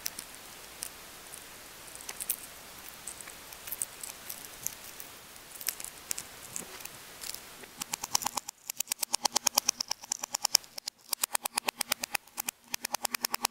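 Eggshell being cracked and peeled by hand: scattered small cracks and crackles of shell, then from about eight seconds in a fast run of crackling ticks, about ten a second, as the egg is rolled under the palm on a tabletop to crack its shell.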